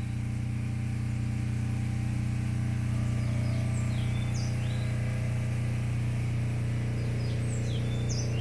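Birds chirping in short high calls, scattered through the second half, over a steady low hum.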